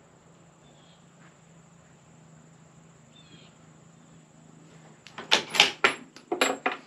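A dog barking several times in quick, irregular succession, starting about five seconds in after a few quiet seconds.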